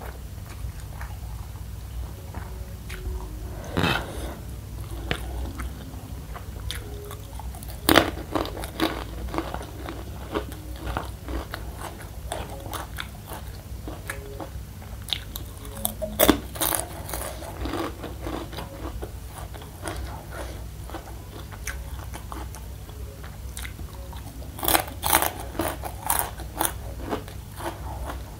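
Chewing with loud, sharp crunches of crispy fried spicy macaroni being bitten. The biggest crunches come about 4, 8 and 16 seconds in, with a quick run of them near the end, over a steady low hum.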